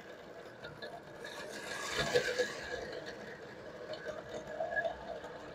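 Vintage Lionel O-gauge electric train running on three-rail track: metal wheels rattling and clicking along the rails over a steady whine. It swells louder about two seconds in.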